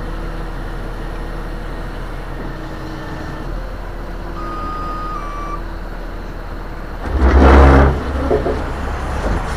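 Heavy rotator tow truck's engine running steadily while its boom is worked, with a brief thin beep-like tone near the middle. About seven seconds in comes a loud rushing burst lasting under a second.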